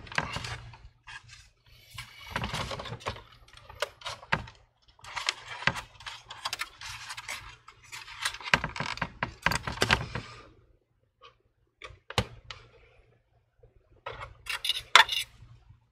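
Metal hard-drive cage being pushed and worked loose inside an all-in-one PC's plastic chassis: scraping and rattling with many sharp clicks in stretches over the first ten seconds, then a lull with a single click, and a short burst of clicks near the end.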